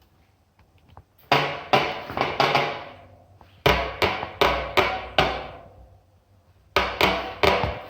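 Hard knocking or hammer-like blows, in three bursts of about five quick strikes each, every blow ringing on with a long echoing tail.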